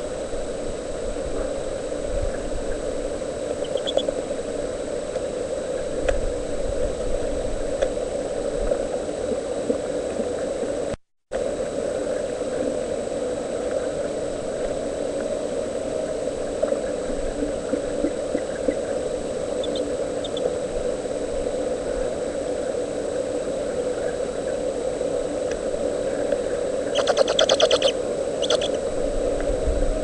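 Steady hum and hiss of a live-stream nest camera's microphone feed, with a few faint high chirps and, near the end, a short run of raspy high calls. The sound cuts out for a moment about a third of the way in.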